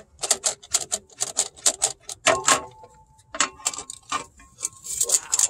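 Rapid, irregular metallic clicking and clinking, several clicks a second, as the clutch pressure plate is worked off the flywheel. A faint ringing note sounds around the middle.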